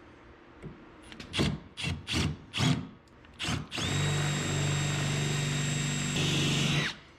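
Milwaukee cordless drill boring into the lock cylinder of a car's locked fuel filler cap: a few short spurts first, then a steady motor whine for about three seconds that changes tone shortly before it stops and winds down near the end.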